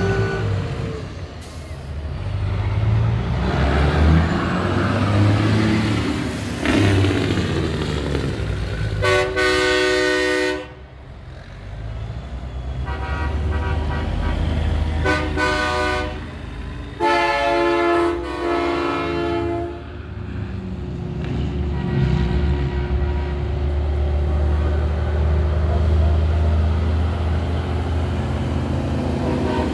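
Semi-truck air horns blowing three blasts: a blast of about a second and a half around nine seconds in, a short one around fifteen seconds, and a longer one of about two and a half seconds soon after. Under them the diesel engines of the passing trucks run with a steady low rumble.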